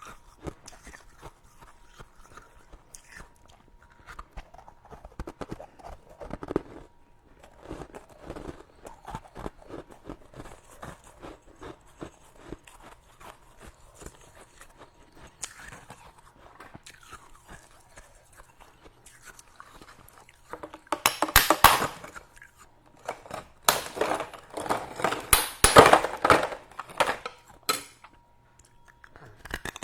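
Close-up chewing of powdery freezer frost: soft, quiet crunching, then two loud bouts of dense crunching, one about two-thirds of the way in and a longer one soon after.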